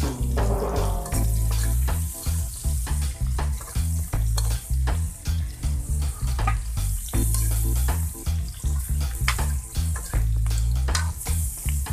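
Baby potatoes sizzling in hot oil in a wok while a perforated metal skimmer stirs them, scraping and clicking against the pan and the potatoes. A low repeating beat runs underneath.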